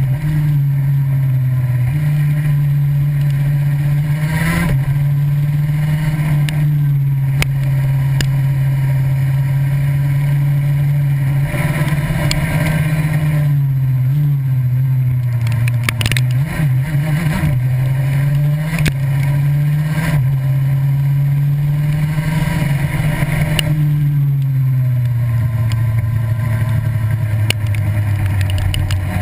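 Go-kart engine running steadily at high speed, its pitch stepping and wobbling a few times and sliding lower near the end, with scattered knocks.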